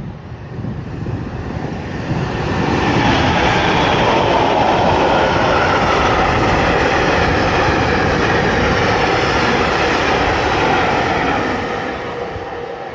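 A train passing by on the tracks: the rumble builds over about two seconds, holds loud, then fades away near the end.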